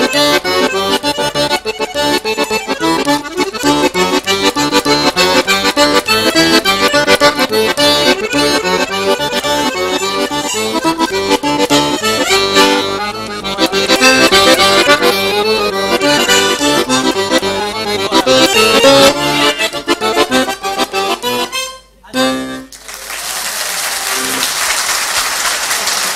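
Piano accordion played solo, with fast-moving runs of notes. The piece ends about 22 seconds in, and applause follows.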